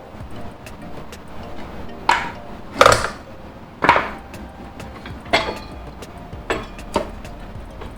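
A string of about half a dozen irregular metal clanks and knocks, some ringing briefly, from work on a motorcycle rear wheel as it is jacked up and worked free.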